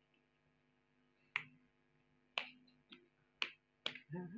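Small plastic bottle being handled over a tiled floor: a series of five sharp clicks and knocks, roughly one a second.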